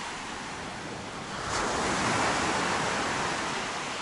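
Sea surf breaking on a pebble beach: a wave swells about a second in and washes up the shore, then eases back.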